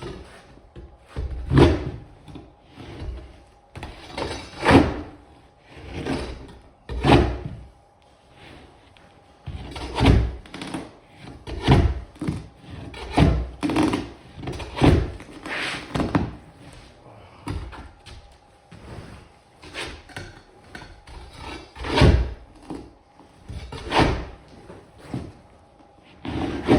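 Repeated scraping and knocking strokes, about one every second or two, of a roofing shingle remover prying glued-down commercial carpet up off the floor.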